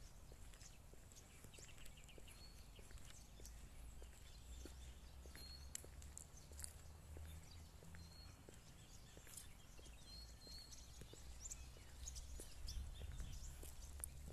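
Near-silent outdoor ambience: a low wind rumble on the phone microphone, faint footsteps on pavement, and a few short, high bird chirps scattered through.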